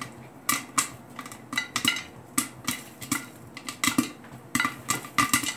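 Popcorn kernels popping in oil inside a lidded metal pressure cooker: sharp, irregular pops, about three a second, with the popped kernels knocking against the pot.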